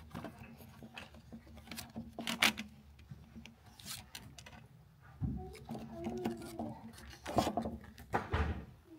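Laminated instruction sheets rubbing and scraping against each other and a clear plastic display holder as they are handled and flipped: a series of short rasping rubs.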